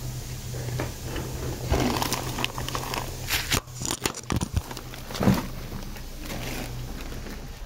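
Handling noise from a recording device: irregular rustling, crackling and knocks, the sharpest about five seconds in, over a steady low hum that stops near the end.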